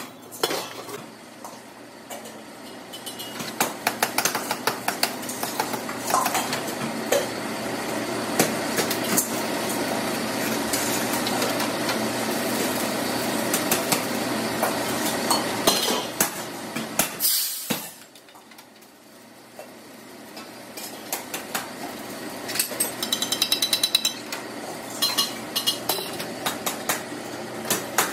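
A steel gas-cylinder half-shell spinning on a lathe while an abrasive tool grinds its surface: a steady loud grinding noise with scattered rattles and clicks. About 17 seconds in it drops away, and a quieter run of sharp metallic clinks and rattles follows.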